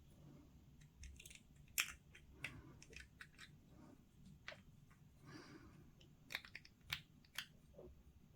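Faint, scattered sharp clicks and soft scraping from hobby tools working on small plastic miniature parts, such as sprue cutters snipping and a blade trimming mould lines.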